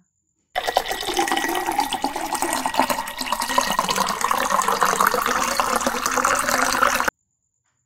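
Frothy blended pineapple lemonade pouring from a glass jug into a glass over ice, a loud steady splashing pour. It starts suddenly about half a second in and cuts off abruptly near the end.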